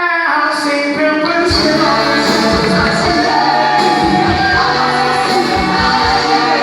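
Loud music with singing and a steady beat, starting suddenly at the outset.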